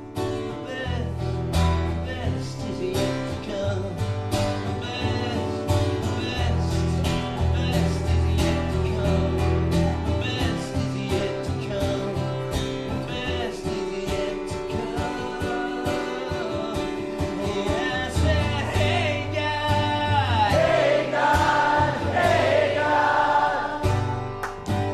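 Music: a guitar and a steady bass line with singing, in a gospel-like style; the singing rises to the front in the last few seconds.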